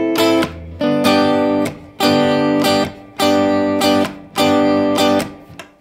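Guitar strumming chords in a steady rhythm, a chord about every second, each one stopped short by muting the strings.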